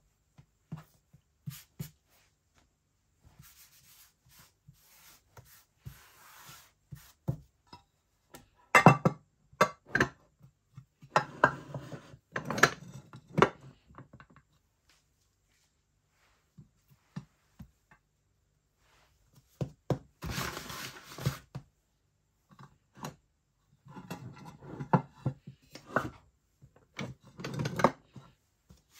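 Kitchen handling noises: scattered knocks and taps with stretches of rubbing, coming in clusters with a quiet pause of a few seconds midway.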